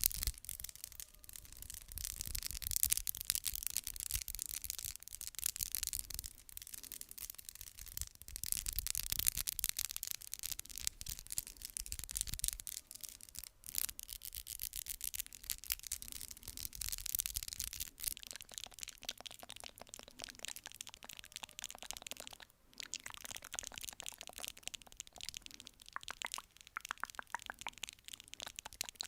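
Rapid ASMR tapping: a dense, fast stream of crisp taps and scratchy rubbing that goes on almost without a break, pausing briefly about 14 and 23 seconds in.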